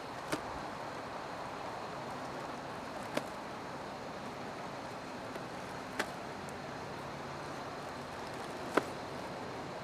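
Steady vehicle running noise, with four sharp clicks spaced evenly about three seconds apart.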